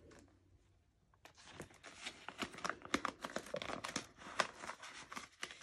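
Paper banknotes and a clear plastic cash-binder sleeve rustling and crinkling as bills are handled and tucked away. It is a quick run of small crackles that starts about a second in.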